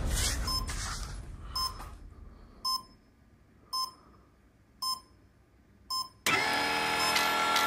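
Background music fades out, then a short electronic beep sounds about once a second, five times, from the RC pulling tractor's electronics. Music starts again abruptly near the end.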